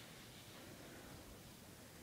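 Near silence: faint steady outdoor background hiss.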